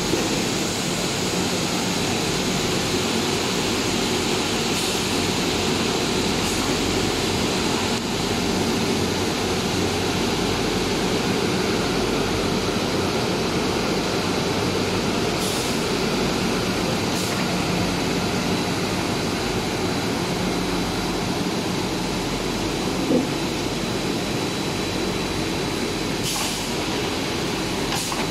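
Plastic hollow corrugated sheet extrusion line running: a steady, continuous machine drone with a thin high whine held on one pitch, and a few faint ticks.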